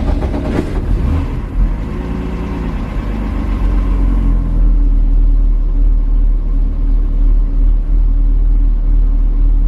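BMW E36 under way after pulling off with a manual clutch: a steady low engine and road rumble that grows louder about four to five seconds in.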